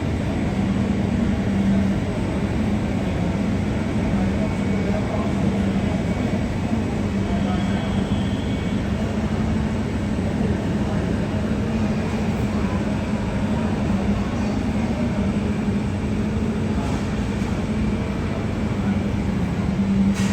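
Steady rumble of a JetBlue Airbus airliner's jet engines running, with a low steady hum underneath.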